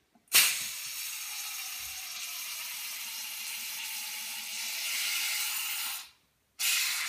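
Gas hissing out from under the cap of a bottle of home-fermented kombucha as it is eased open, the built-up fermentation pressure escaping. It starts with a sudden loud burst, then runs as a steady hiss, stops for about half a second near the end and starts again.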